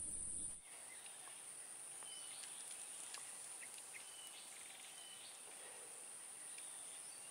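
Faint outdoor ambience: a steady high-pitched insect drone, with a few short bird chirps scattered through it. A low rumble cuts off abruptly about half a second in.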